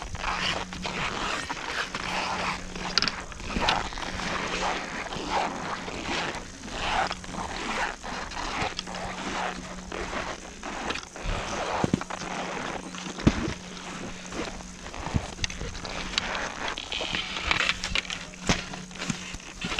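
Ski-boot footsteps crunching on packed snow at a slow walk, about one or two steps a second, with a few sharp clicks along the way.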